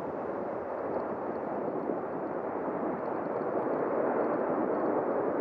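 Distant jet noise from a Boeing E-3A AWACS's four turbofan engines: a steady rushing sound growing slowly louder as the aircraft comes nearer.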